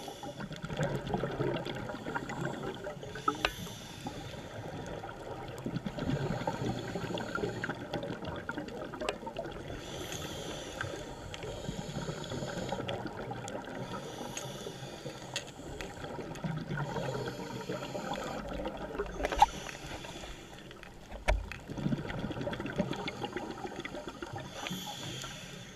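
Underwater sound during a scuba dive: bursts of a diver's exhaled regulator bubbles every three to four seconds, over a steady watery hiss with scattered sharp clicks.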